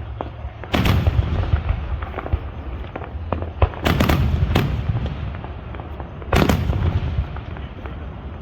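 Aerial fireworks bursting overhead: sharp booms about a second in, two close together around four seconds, and another near six and a half seconds. Lighter crackles come between them over a steady low rumble.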